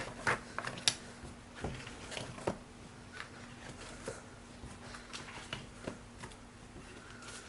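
Light, scattered rustles and small taps of paper and plastic being handled, a little busier in the first couple of seconds, over a faint steady hum.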